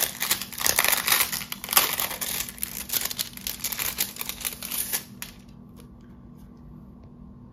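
Thin plastic sleeve crinkling as it is handled and pulled open, a dense run of crackles that stops about five seconds in, leaving a faint steady hum.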